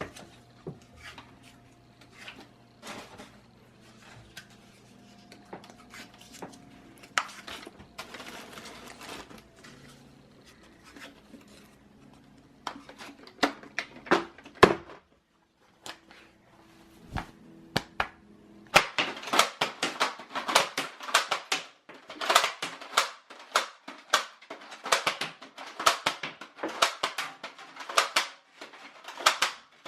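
Toy foam-dart blasters firing: scattered sharp clicks and snaps at first, then from a little past halfway a dense, rapid run of clicks and snaps as a volley is fired.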